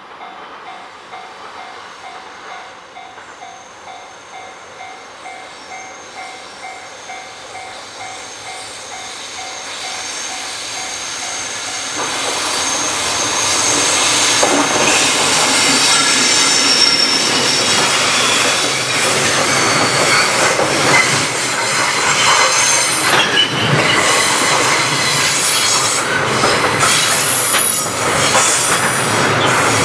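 A level-crossing warning bell rings in an even pulse while a JR Freight train, hauled by an electric locomotive, draws near. From about twelve seconds in the train passes close by, loud, with wheels squealing high and the clickety-clack of the wagons.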